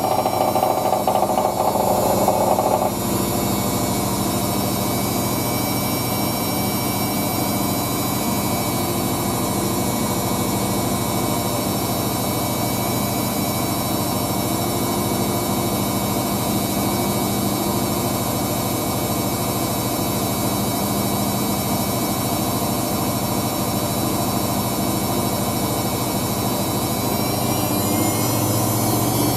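Hoover DYN9144D3X front-loading washing machine spinning a load of towels at high speed on its spin-only cycle. It gives a steady whine and motor hum. A louder mid-pitched tone drops away about three seconds in.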